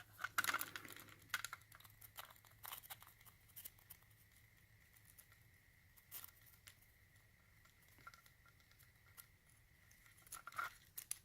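Faint, scattered clicks and light scrapes of small metal lock parts being handled while a picked lock is taken apart and its core pushed out.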